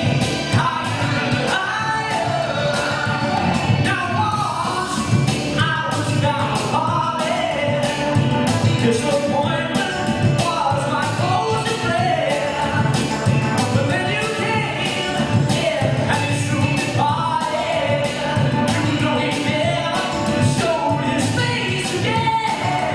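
A male vocalist singing live into a microphone over a backing track with a steady beat, both played through PA speakers.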